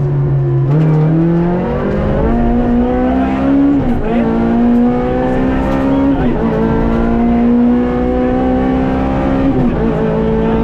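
Rally car's engine heard from inside the cabin, accelerating hard and shifting up through the gears. The pitch climbs steadily, then drops back at each of four upshifts.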